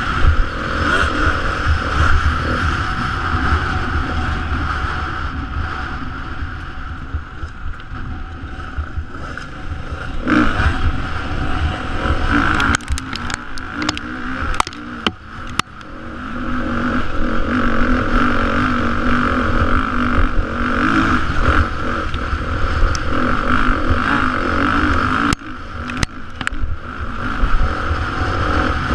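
Beta 430 RR-S single-cylinder four-stroke dirt bike engine running hard on a lap, easing off twice in the first half and then pulling strongly again, with wind noise on the helmet microphone. A cluster of sharp clicks comes about halfway and again near the end.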